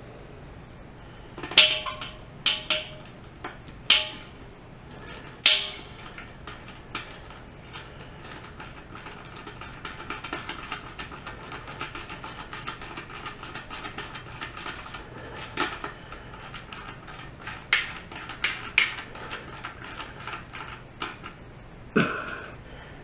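Metal tools clinking and knocking a few times, then a long run of rapid metallic clicking, as a self-tapping screw is driven into the sheet-metal chassis of an air compressor to fasten a mount.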